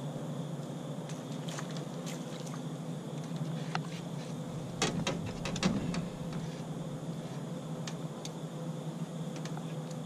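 Electric trolling motor humming steadily. About five seconds in there is a short cluster of knocks and clicks on the boat's deck as the angler crouches and shifts his weight.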